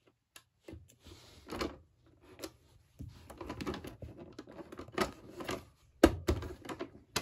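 Irregular clicking and rattling from the plastic animatronic mechanism of a Gemmy Happy Wisdom Fish singing fish, a toy with known mechanical faults. Sharp clicks and short rattles come at uneven intervals, with the loudest cluster about six seconds in.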